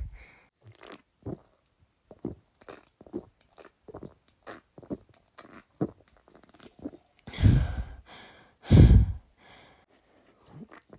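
Close-miked gulping as a person chugs a soda, a run of short swallows every third to half second. Two louder, longer, deeper mouth sounds come about seven and a half and nine seconds in.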